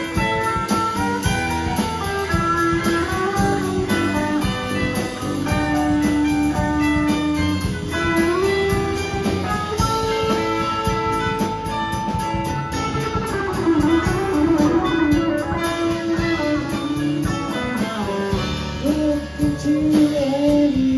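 Live rock band playing an instrumental passage: electric guitar leading over keyboards, bass and drums, with held melodic notes above a steady beat.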